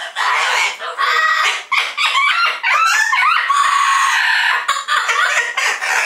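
Double yellow-headed Amazon parrot calling loudly in a long chattering run of squawks and whistles. Around the middle come quick up-and-down warbled notes, then a held whistled note.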